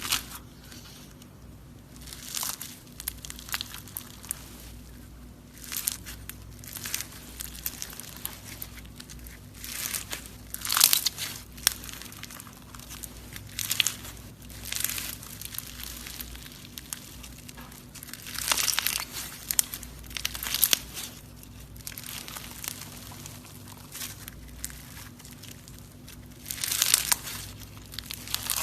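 Slime being poked and squeezed by hand, giving irregular crackly, crinkling squishes at uneven intervals of one to a few seconds.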